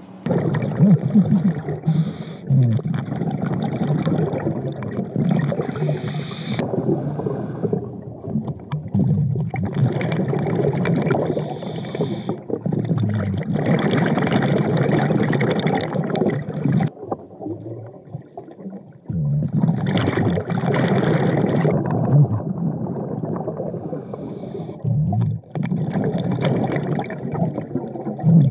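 A diver breathing through a regulator underwater: long stretches of gurgling exhaled bubbles, broken by short pauses between breaths.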